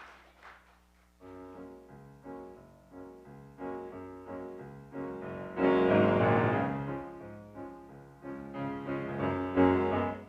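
Piano playing the introduction to a gospel song: a run of struck chords starting about a second in, swelling louder around the middle and again near the end.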